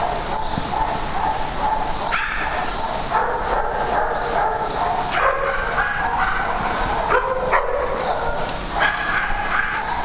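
Several dogs barking, yipping and whining at once in a steady, continuous din of overlapping calls, as when a group of dogs is excited at play.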